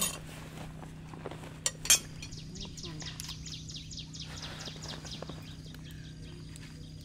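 Sharp clinks of tableware being handled, the loudest just before two seconds in. Then a bird calls a quick run of falling high notes, about five a second, for some three seconds, over a steady low hum.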